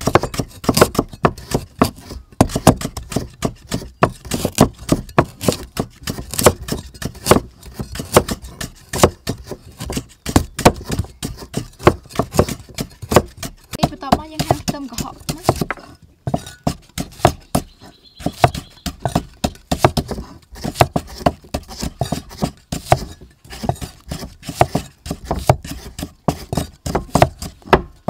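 A meat cleaver chopping shallots on a thick round wooden chopping block: rapid, even knocks of the blade on the wood, with a short pause about halfway through.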